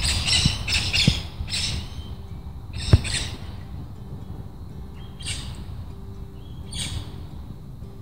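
Australian king parrots giving harsh squawking calls: a quick run of squawks in the first two seconds, then single squawks spaced a couple of seconds apart, over a steady low rumble, with one sharp knock about three seconds in.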